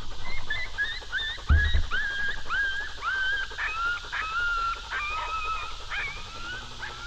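High-pitched canine yips and whines in a quick series, about two a second, each rising sharply and then holding its pitch, the calls dropping lower in the second half. A low thump about a second and a half in.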